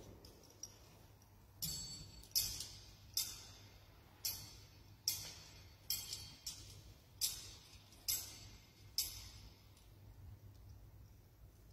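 A series of about ten faint, sharp clinks at irregular intervals, each with a short bright ringing tail, stopping about nine seconds in.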